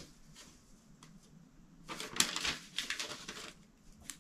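Paper rustling and crinkling as a folded magazine page is handled and opened out, mostly in a stretch from about two to three and a half seconds in, with a few faint clicks before it.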